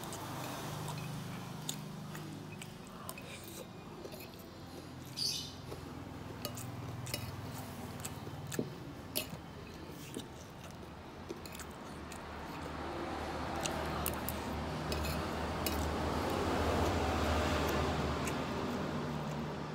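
A person eating rice: chewing, with a metal spoon clicking and scraping against a ceramic plate now and then. A low broad noise swells in the second half.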